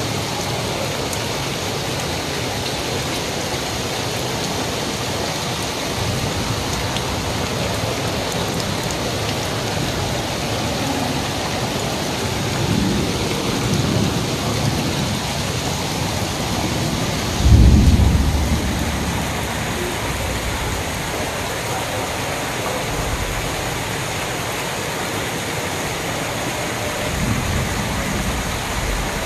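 Steady heavy rain falling, a dense even hiss throughout. A few low rumbles rise over it, the loudest coming suddenly about halfway through and fading over a couple of seconds.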